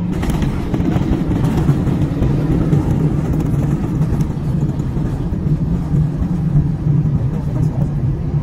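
Airbus A320 cabin noise on the ground after landing: a steady rumble of the engines and wheels rolling on the runway, heard from inside the cabin, with a steady low hum.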